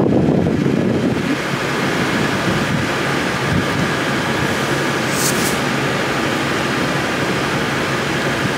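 Diesel-electric freight locomotive idling with a steady low rumble, with wind buffeting the microphone. A brief high hiss sounds about five seconds in.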